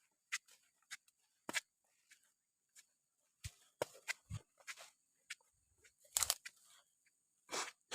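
Irregular short clicks, taps and rustles of things being handled or moved about, with a louder rustle about six seconds in and another near the end.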